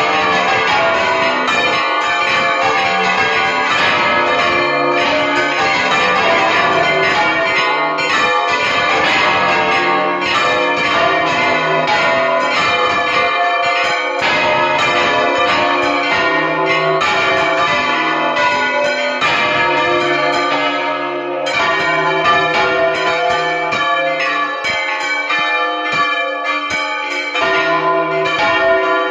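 Two large bronze church bells swung full-circle on wooden yokes by hand, ringing in alternation. Heard up close in the belfry as a loud, continuous clangour of strikes with long, overlapping ringing tones.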